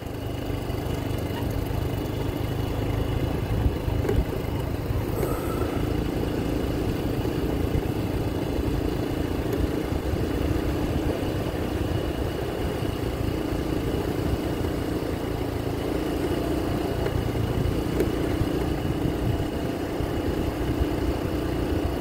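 Daelim motor scooter's engine running steadily at cruising speed, with a low rumble of wind and road noise.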